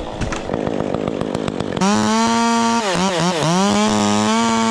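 A two-stroke chainsaw is opened up to full throttle about two seconds in, after a stretch of irregular clattering. Its steady high pitch drops and recovers twice, then holds steady.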